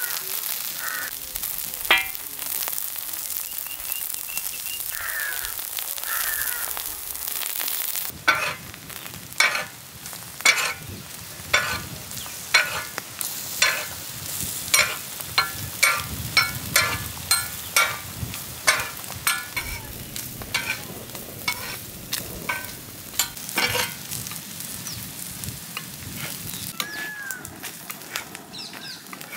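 Eggs sizzling as they fry on a large flat open pan. After about eight seconds a metal spatula starts scraping on the pan, a sharp scrape every second or so as the fried eggs are lifted off.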